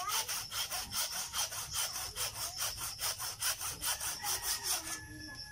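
Hand saw cutting through thick woody bonsai roots in quick back-and-forth strokes, about four or five a second, stopping near the end. A steady high insect trill runs behind it.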